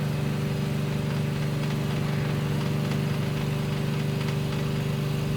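Steady low machine hum with an even pitched drone that does not change, with a few faint small ticks.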